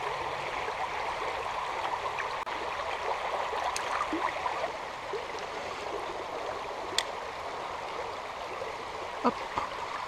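Shallow stream flowing over a gravel bed: a steady rush of running water. A single sharp click about seven seconds in.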